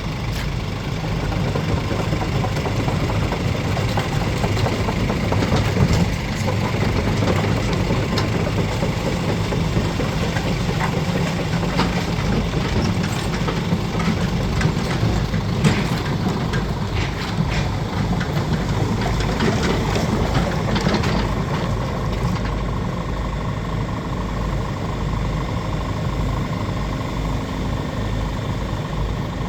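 Case CX80C midi excavator's diesel engine running steadily, with scattered sharp clicks and knocks over it. About three-quarters of the way through it settles to a smoother, quieter run.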